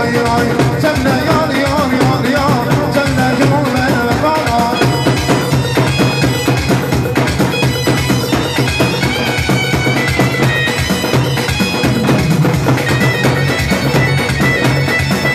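Live wedding band music: an electronic keyboard playing a reedy, pipe-like melody over a steady low drone and a drum rhythm.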